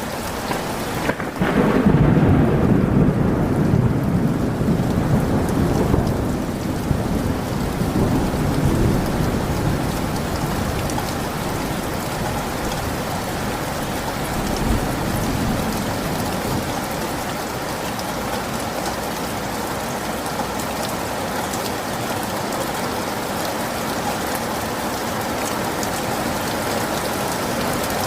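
Heavy rain falling steadily, with a long peal of thunder rumbling in about a second and a half in and dying away over the next several seconds; a fainter rumble comes again about halfway through.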